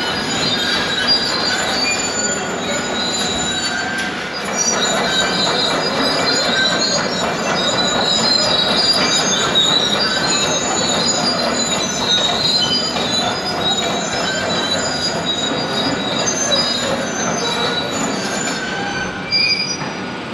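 Heavy demolition machinery working steel: a steady grinding clatter with many short, shifting high-pitched metal squeals and screeches over it.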